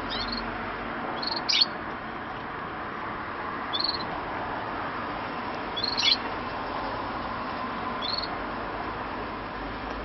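Caged canaries giving short, high single chirps, about six spread unevenly through the stretch, some sweeping down in pitch, over a steady background hiss.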